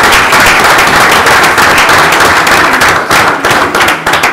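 Audience applauding: many people clapping, thinning out near the end.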